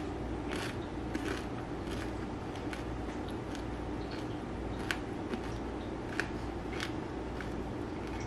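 A person chewing a crunchy chip with salsa: scattered sharp crunches at irregular intervals over a steady low background hum.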